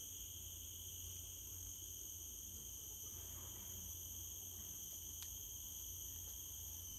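Steady, high-pitched insect chorus, an unbroken shrill trill holding several pitches at once, over a faint low rumble, with one faint click about five seconds in.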